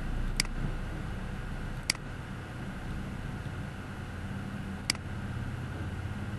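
Computer mouse clicking three times, a second or more apart, over a steady low background rumble.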